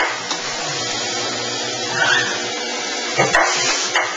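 Robotic screw-driving cell running: a steady machine hiss with several short bursts of mechanical sound from the screw feeder and driver.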